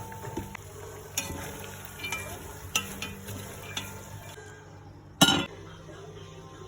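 Food frying in a pot while it is stirred: a utensil clinks against the pot a few times about a second apart, with one louder clank about five seconds in.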